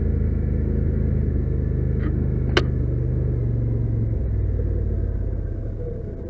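Polaris Sportsman XP 850 ATV's 850 cc parallel-twin engine running under way on a dirt trail, its pitch dropping about four seconds in as the revs fall. A single sharp knock sounds about two and a half seconds in.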